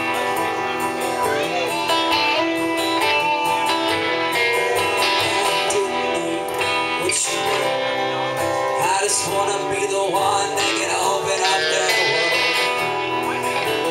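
Acoustic guitar strumming steadily under electric guitar lead lines, some of its notes bending in pitch, in an instrumental passage of a live duo song.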